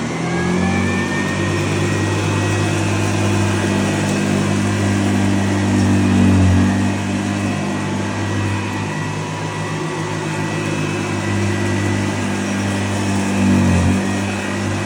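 1964 Hoover Convertible Special Model 34 upright vacuum cleaner running on carpet: a steady motor hum with a high whine that rises in the first second. The hum dips briefly in pitch twice, about six and a half seconds in and again near the end, as the cleaner's load changes.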